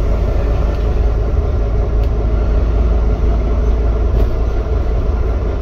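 Volvo B9TL Wright Gemini double-decker bus on the move, heard from the upper deck: steady low rumble of its six-cylinder diesel engine and road noise, with a faint tick or two.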